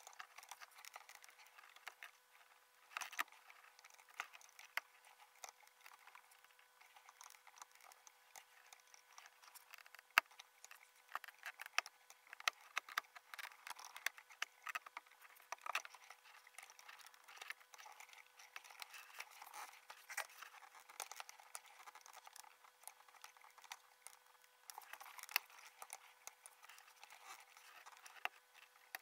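Laparoscopic instruments, a Karl Storz needle holder among them, clicking, tapping and rustling as they handle suture thread and an elastic band practice model inside a box trainer, played back at five times speed. There are many quick irregular clicks, with a faint steady hum throughout.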